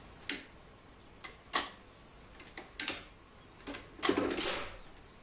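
Old iron tower-clock mechanism ticking: sharp paired ticks, a little more than a second apart, with a longer clank and a faint ringing tone about four seconds in.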